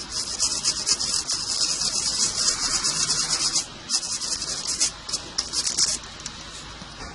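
Rapid scrubbing strokes of cleaning a key fob's circuit board, brushing off leftover flux with electrical cleaner. The scrubbing runs for about three and a half seconds, then comes in two shorter spells and stops about six seconds in.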